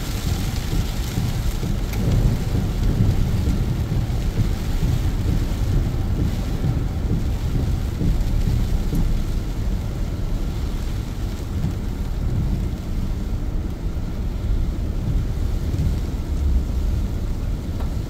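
Rain falling on a car's windshield, heard from inside the moving car, over a steady low rumble.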